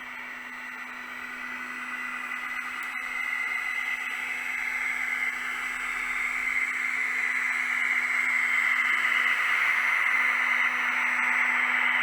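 H0-scale LUX track-vacuum car running along the model railway track, its small suction motor making a steady whirring hiss with a low hum under it, growing steadily louder as it comes closer.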